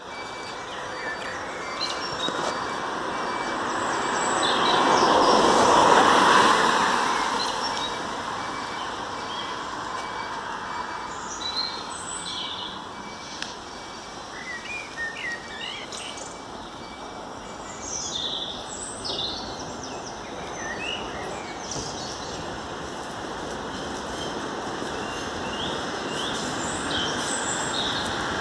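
Outdoor street ambience: passing traffic, one vehicle's rush swelling and fading about six seconds in, with small birds chirping repeatedly through the middle.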